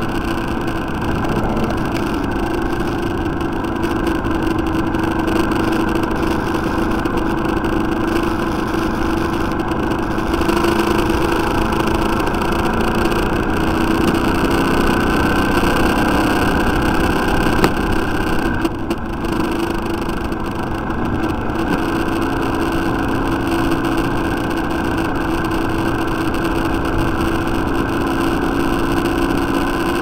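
Motorcycle engine running steadily under way, heard from an onboard microphone with wind and road noise. The engine note shifts slightly a few times without any sharp revving.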